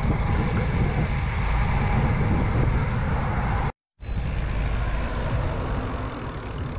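Wind buffeting the microphone of a camera mounted on a moving road bike, a steady rumble, with the sound cutting out for a moment about four seconds in at an edit.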